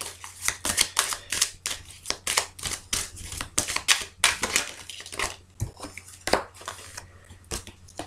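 A deck of cards being shuffled by hand: a quick run of light snapping and clicking of cards, thinning to a few separate clicks in the last few seconds.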